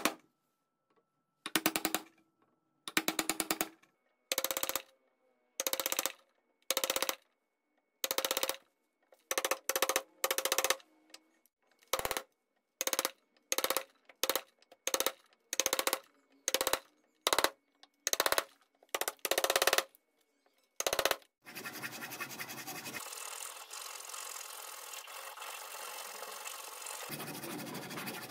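A steel chisel struck again and again, about one blow a second, as it chops a rectangular mortise into a hardwood block. About 21 s in the blows stop and a steady scraping runs for about seven seconds while the cut-out opening is cleaned.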